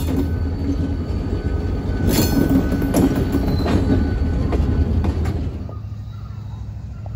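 Old ex-Rio Grande diesel locomotive running as it rolls slowly past pulling flatcars, with a few sharp metallic clanks and squeals from the wheels and couplers between about two and four seconds in. About five and a half seconds in, the sound cuts to a quieter, steady low rumble.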